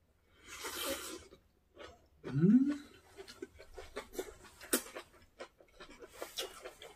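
A person eating a big mouthful close to the microphone: a breathy exhale, a short rising hum about two seconds in, then a run of wet smacking and chewing clicks.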